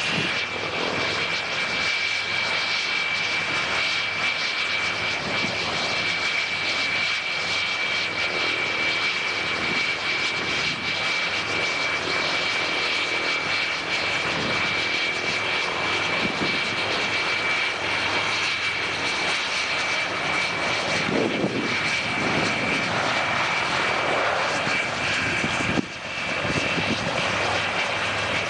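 Twin Rolls-Royce Avon jet engines of a de Havilland Sea Vixen running on the ground with a steady high whine over a loud rushing noise. Near the end, after a brief break, the sound turns to the engines of a taxiing Nord Noratlas propeller transport.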